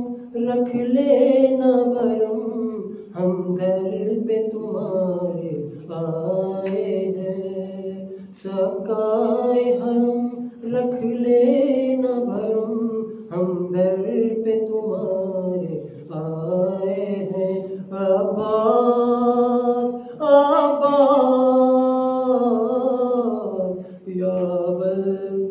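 Solo male voice chanting a munajat, a devotional supplication, unaccompanied, in long melodic phrases of a few seconds each with short breaks for breath.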